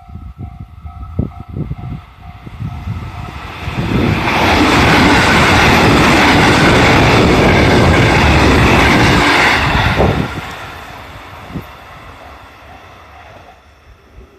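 JR 313 series electric train passing at speed. A loud, even rush of wheels on rail builds about four seconds in and holds for about six seconds, then drops sharply and fades away.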